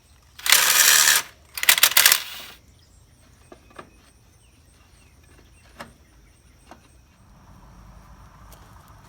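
Cordless drill driver spinning nuts off bolts in two short runs, followed by light metallic clicks of nuts and parts being handled.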